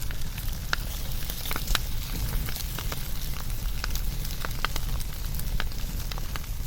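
Wood fire burning: a steady low rumble and hiss of the flames with frequent sharp, irregular crackles and pops.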